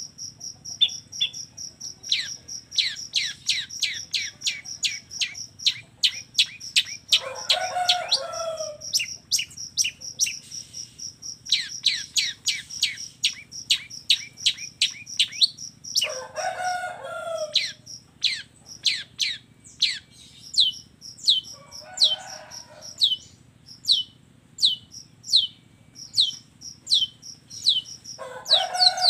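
Long-tailed shrike (cendet) singing: a fast run of sharp, down-slurred whistled notes over a high pulsing trill. Four harsh, rasping bursts come about every six seconds.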